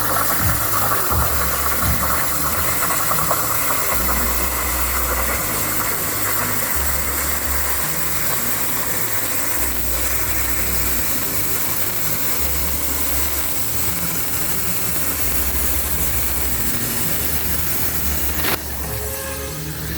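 CNC machine running: a steady hiss with a low hum that comes and goes every second or two, with a short dip near the end.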